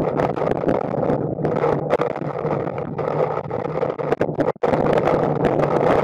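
Hurricane-force wind buffeting the microphone of a storm-surge probe camera: a dense, steady rush of noise. The sound cuts out for a moment about four and a half seconds in.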